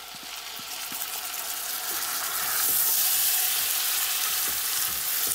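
Potato slices frying in butter in a pot sizzle as tinned tomato purée is scraped in off a plate and stirred with a wooden spoon. The sizzle grows louder over the first two seconds and stays loud.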